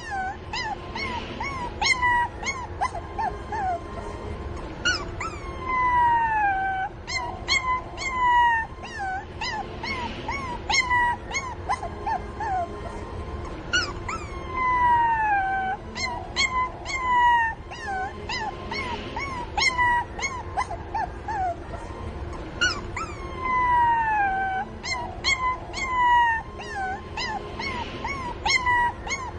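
Young puppies whining and crying for their mother: short high-pitched yelps mixed with long whines that slide down in pitch. The same run of cries repeats about every nine seconds.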